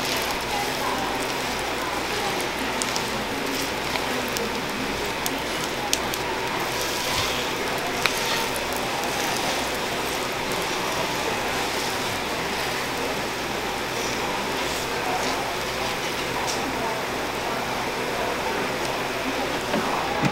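Butter-rich croissant dough sizzling steadily on a hot waffle iron, with a couple of light clicks of metal tongs against the plates.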